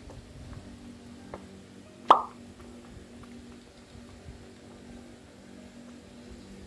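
Cat drinking at a gravity-fed water bowl: one loud watery plop about two seconds in, the gulp of an air bubble rising into the upturned water bottle as the bowl's level drops, with a fainter tick a little before it.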